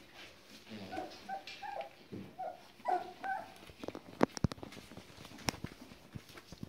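Young border collie puppies giving short, high whimpers and squeaks in the first half, followed by a few sharp clicks or knocks from about four seconds in.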